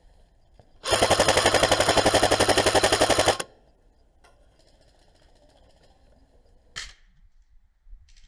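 G&G CM15 airsoft electric rifle firing one full-auto burst of about two and a half seconds: a loud, rapid, even rattle of shots with the gearbox's drone underneath. Near the end comes a single short, sharp snap.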